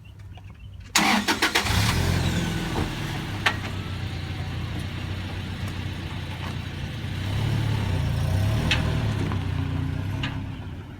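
A car engine cranks and catches about a second in, then runs, rising in level a little past the middle and easing off near the end.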